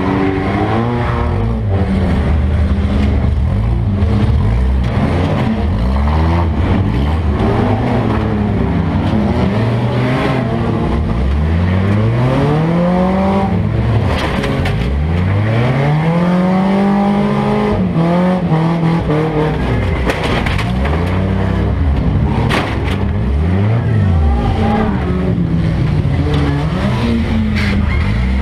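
Demolition derby car's engine heard from inside its gutted cabin, revving up and dropping back again and again, with a few sharp knocks in the second half.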